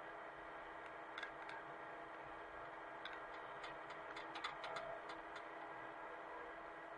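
Hitachi mini excavator's engine running steadily, heard faintly, with a scatter of light sharp clicks, most of them in a quick cluster around the middle.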